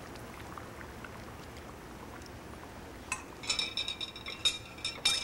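A pot of rice and stock bubbling at a low simmer, then from about three seconds in a quick run of sharp metallic clinks and taps that ring briefly: cookware and a utensil knocking together as more tomatoes go into the pot.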